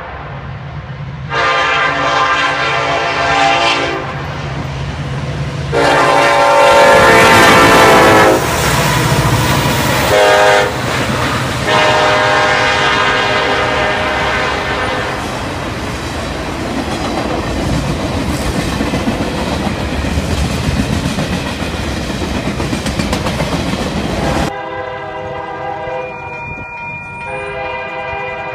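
Union Pacific SD70ACe diesel locomotive leading a manifest freight, sounding its Nathan K5LLA five-chime air horn in the long-long-short-long grade-crossing pattern as it approaches, the second blast the loudest. The locomotives and freight cars then pass close by, with a steady rumble and wheel clatter over the rail joints. Near the end the sound cuts to a quieter, more distant train horn.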